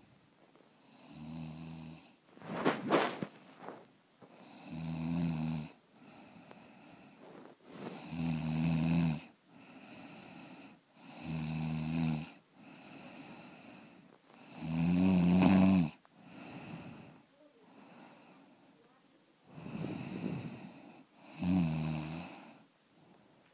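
Snoring in sleep: a loud, low, buzzing snore about every three to four seconds, with softer breathing between the snores.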